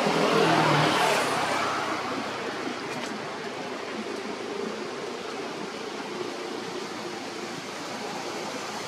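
Steady outdoor background noise, louder for the first second or so and then an even hiss.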